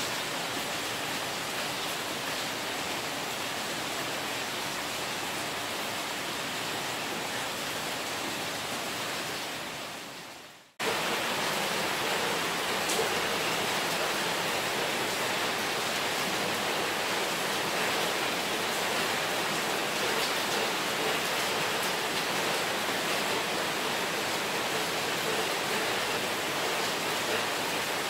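Steady hiss of a heavy rain shower, a downpour falling on the surrounding houses and roofs. It fades out about ten seconds in and then returns abruptly.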